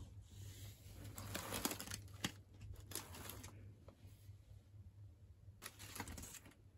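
Rustling and crinkling as a mesh tote bag and its contents, a fabric drawstring pouch and plastic-wrapped amenities, are handled, in several short bursts with a sharp click in between. A low steady hum runs underneath.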